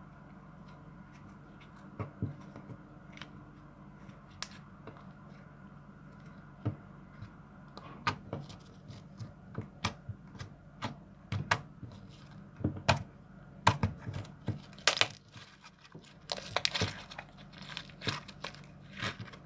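Hands squeezing and pulling an aged homemade slime-like dough, making irregular sticky clicks, pops and tearing crackles that come sparsely at first and grow denser and louder about halfway through.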